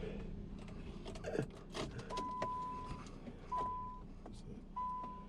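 An Infiniti I30's dashboard warning chime beeping: one steady tone repeating about every second and a half, starting about two seconds in. Light clicks and rattles of handling come before and between the beeps.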